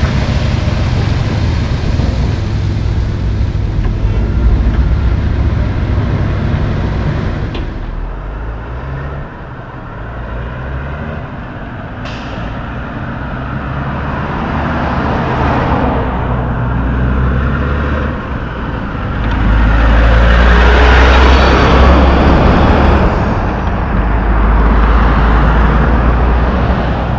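Diesel dump truck pulling a semi end-dump trailer, its engine running as it drives off across a gravel lot. After an abrupt change about eight seconds in, road traffic: cars and trucks passing one after another, loudest near the end.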